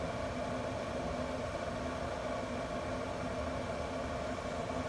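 Camp Chef pellet grill's blower fan running with a steady hum.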